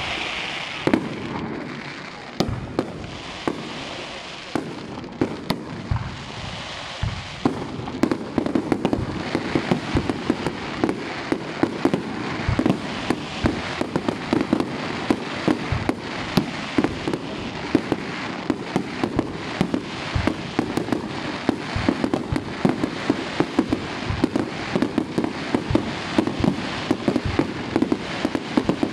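Fireworks display: aerial shells bursting with sharp bangs and crackling. The bangs are spaced out at first, then from about eight seconds in they come in a dense, continuous run.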